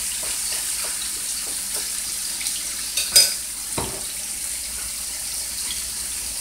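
Flour-dredged beef short ribs frying in a skillet, a steady sizzling hiss as they brown. Light clicks of the pieces being turned in the pan during the first two seconds, then a sharp clack about three seconds in and a duller knock just after.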